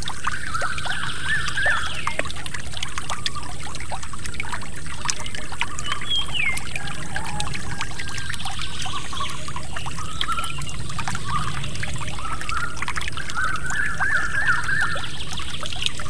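Water trickling and pouring steadily, with small splashes throughout. Birds chirp now and then, with a twittering phrase near the end.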